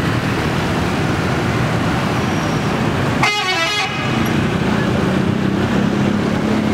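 Traffic noise and a coach's diesel engine running, with a brief horn toot about three seconds in, lasting under a second and falling in pitch over a few notes. The engine hum grows stronger in the second half as the Scania K410 coach comes nearer.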